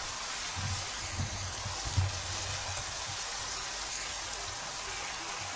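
Spice paste (masala) sizzling steadily in hot oil in a nonstick pan as it is stirred and fried with a wooden spoon. A few soft low thumps come in the first two seconds.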